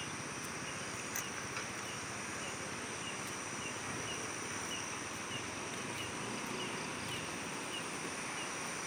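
Night insects: a steady high-pitched shrill with a short chirp repeating about twice a second, over a low outdoor hiss. One faint click about a second in.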